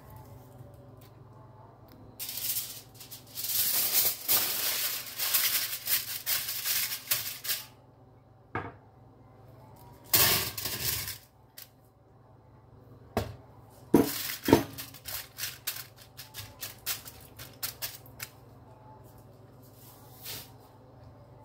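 Raw potato cubes rattling as they are tossed with seasoning in a glass dish for several seconds. About ten seconds in they are tipped out with a short rush into a foil-lined air fryer basket, followed by scattered clatter of the cubes landing and foil crinkling.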